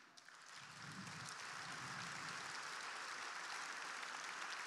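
A large audience applauding, swelling over about the first second and then holding steady.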